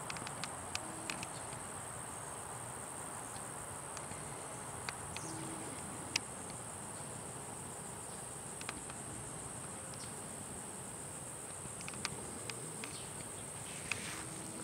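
Steady high-pitched drone of an insect chorus, with scattered faint clicks and crackles in dry pine straw.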